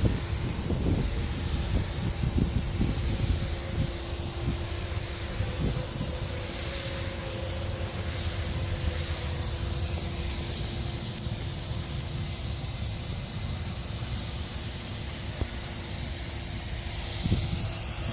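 Paint spray gun hissing steadily as it lays a wet coat of clear onto a car bumper, with a steady low hum underneath.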